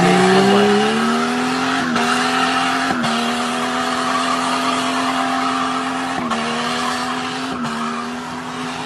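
SUV engine revving hard and held at high revs, under heavy load as the vehicle drags a large boulder along the road on a tow strap. The pitch climbs at the very start, then holds steady with a few brief dips.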